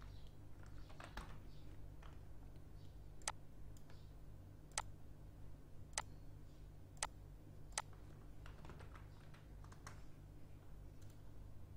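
Faint computer keyboard keystrokes and mouse clicks, with about five sharp single clicks spread through the middle, over a steady low hum.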